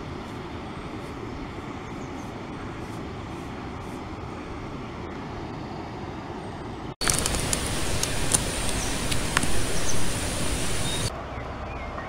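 Steady rushing of river water. About seven seconds in it breaks off into a louder stretch of hiss with a high steady whine and scattered clicks, which stops abruptly near the end.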